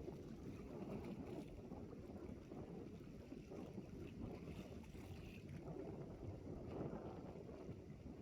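Wind buffeting the microphone: a faint, steady, unevenly fluttering low rumble.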